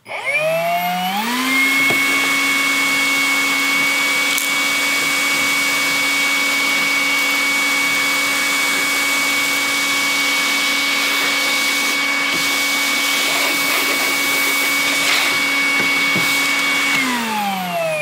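Metabo HPT MultiVolt cordless shop vacuum switched on at its medium setting (speed 2). The motor spins up with a rising whine over about a second and a half and runs steadily while the nozzle sucks up sawdust. Near the end it winds down, falling in pitch.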